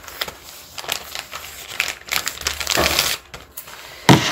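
Crinkling and rustling of handled material close by: a run of small crackles, thickest about three seconds in.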